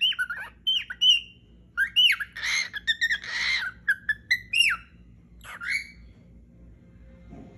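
Cockatiel calling in a rapid run of short chirps and sliding whistles, with two harsher squawks in the middle; the calls stop about six seconds in.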